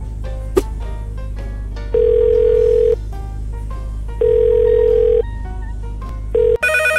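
Telephone ringback tone: two one-second beeps about two seconds apart and a third cut short, over background music. Near the end a phone starts ringing at the other end.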